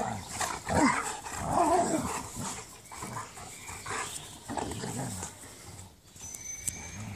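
A Bernese mountain dog and a Briard play-fighting, with a string of short growls and grumbles as they wrestle mouth to mouth. The growls are loudest in the first couple of seconds and weaker toward the end.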